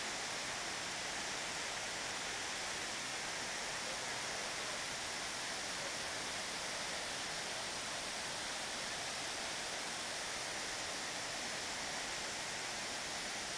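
The roughly 40-metre Tzaráracua waterfall on the Cupatitzio river pouring into its pool: a steady, unbroken rush of falling water, more hiss than rumble.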